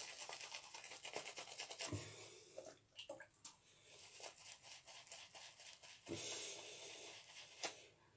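Shaving brush swirling lather on a bearded cheek: a faint, wet, scratchy brushing. It comes in two stronger spells, about the first three seconds and again for a second and a half near the end, with lighter strokes between.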